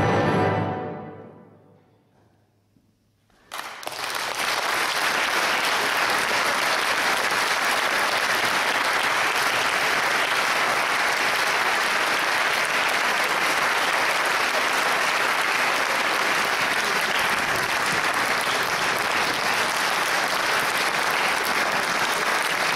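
A brass band's final held chord dies away in the hall's reverberation, followed by about a second and a half of near silence. Then an audience starts applauding suddenly and keeps clapping at a steady level.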